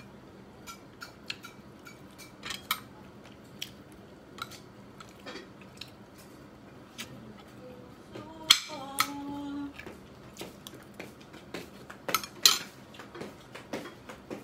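A metal spoon clinking and scraping against a ceramic plate while eating, in scattered short clicks. The loudest clinks come about two-thirds of the way in and again near the end.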